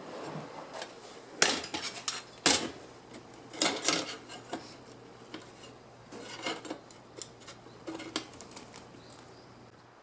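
Metal tools and parts being handled, clinking and clattering in irregular sharp knocks. The two loudest come about one and a half and two and a half seconds in, with more clusters later.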